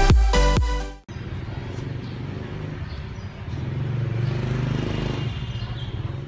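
Electronic dance music cuts off about a second in, giving way to city street traffic: a steady hum of many motorbike engines passing, which swells for a while in the middle.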